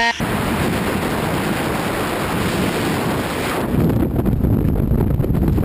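Loud wind rushing over a skydiver's body-mounted camera microphone in freefall, a steady roar of air noise. About two-thirds of the way through it turns heavier and deeper as the buffeting on the microphone grows.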